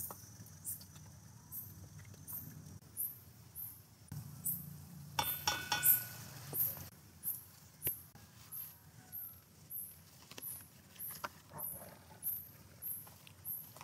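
Potato slices frying in oil in a stainless steel pot on a gas burner, with chopsticks clicking against the pot. Over this, an insect chirps at an even pace, about three chirps every two seconds.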